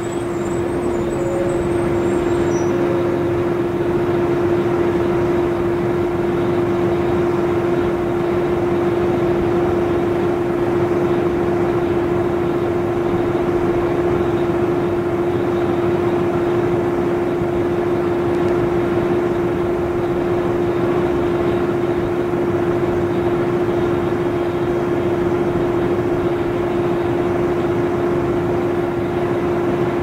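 1994 TMC RTS transit bus under way, its Detroit Diesel Series 50 four-cylinder diesel and Allison V731 automatic transmission running with a steady drone and a constant whine. The sound grows louder over the first few seconds, then holds steady.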